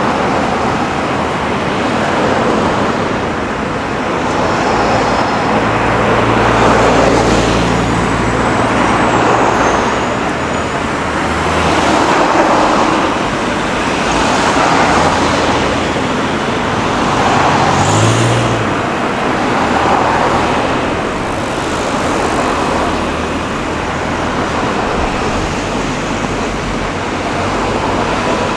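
City street traffic: a stream of cars and other vehicles going past, the tyre noise swelling and fading every couple of seconds as each one passes, with engines running underneath.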